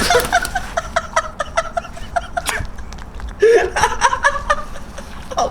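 A person laughing: a fast run of short, high-pitched laughs for about three seconds, then a longer voiced laugh sound.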